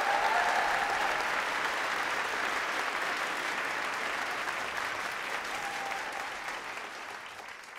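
Large audience applauding: sustained clapping that is strongest at first and slowly dies away toward the end.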